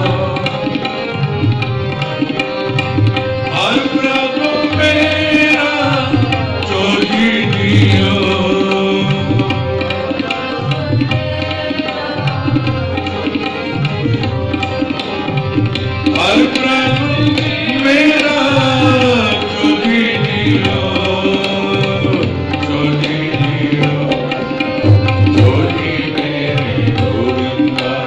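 Sikh kirtan: two harmoniums holding sustained chords under a tabla pair playing a steady rhythmic cycle, with a sung devotional melody of sliding, ornamented notes over them.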